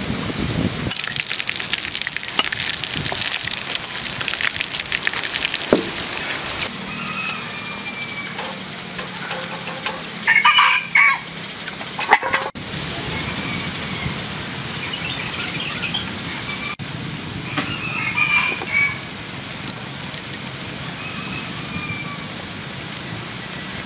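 A rooster crowing, loud once about ten seconds in and again more faintly about eight seconds later, over steady outdoor background noise.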